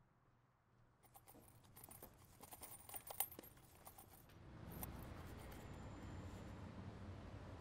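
Faint run of small clicks and jingles, densest between about two and three seconds in. From about four and a half seconds a low, steady outdoor background rumble takes over.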